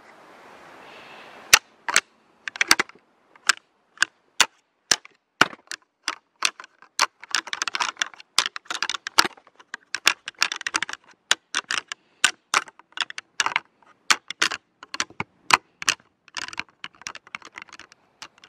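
A pair of rattling antlers clashed and ground together in an irregular run of sharp clicks and cracks, starting about a second and a half in: a rattling sequence imitating two bucks fighting, to draw in a buck.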